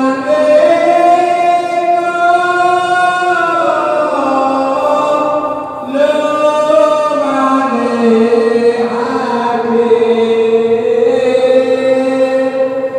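Puji-pujian, Javanese devotional praise chanting sung in a mosque while waiting for the congregational isya prayer in Ramadan. Long, drawn-out melodic phrases with sliding held notes, broken by a short pause for breath about six seconds in.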